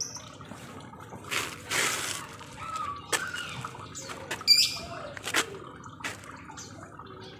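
Lovebirds calling: a harsh, noisy squawk of nearly a second, then short chirps and sharp clicking calls scattered through the rest.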